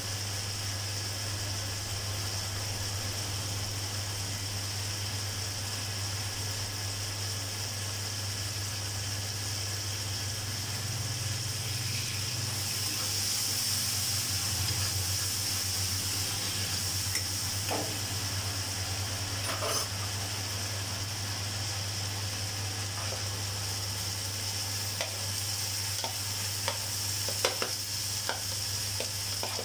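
Food sizzling as it fries in an aluminium kadai, stirred with a flat spatula. The sizzle swells about halfway through. Toward the end the spatula scrapes and taps against the pan in quick clicks as cooked rice goes in.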